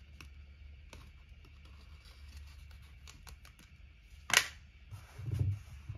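Hands peeling the backing sheet off a vinyl decal on a toilet paper roll: faint rustles and ticks, a sharp crackle about four seconds in, and a dull thump near the end.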